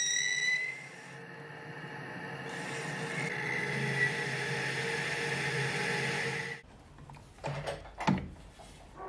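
Homemade lathe running while an indexable carbide insert on a boring bar cuts inside a large bore: a steady hum with a high cutting whine, which dips about a second in and then builds back up. It stops abruptly after about six and a half seconds, followed by a few faint metal clicks.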